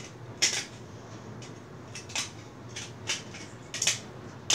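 Circuit boards clicking and clinking against each other and against fingers as they are handled, a scatter of short, sharp clicks, the loudest about half a second in and near the end.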